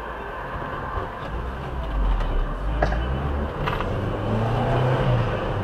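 Car engine and road noise heard from inside the cabin, a steady low rumble, with a couple of short sharp clicks or knocks near the middle. Near the end a steadier engine hum comes in.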